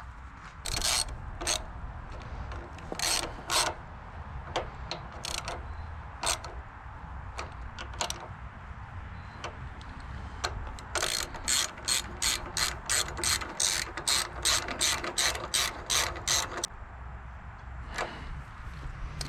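Hand ratchet wrench clicking as a bolt and nuts are run down: a few scattered clicks at first, then a quick even run of about three to four clicks a second for some six seconds in the second half.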